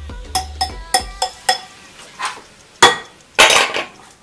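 Ceramic bowls and dishes clinking and knocking together: several short ringing clinks in the first second and a half, then a couple of louder knocks near the end.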